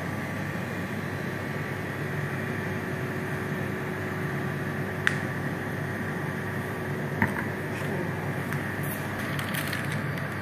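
Steady background hum of running machinery, with two small sharp clicks about five and seven seconds in.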